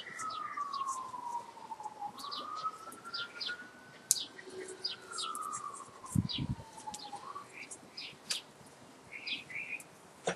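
A siren wailing, its pitch sliding slowly down and back up every two to three seconds, with scattered short high chirps over it. A single dull thump comes about six seconds in.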